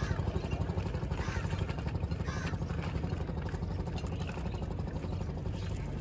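A steady low engine-like hum in the background, with a few faint short higher sounds over it.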